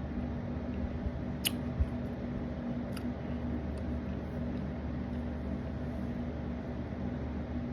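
A steady low electrical or mechanical hum in a small room, with a couple of faint sharp clicks about a second and a half and three seconds in.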